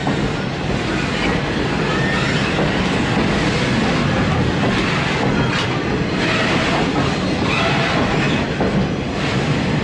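Steam train rolling past on the track: steady, loud running noise of the cars and wheels, with a few sharp clacks and some wheel squeal.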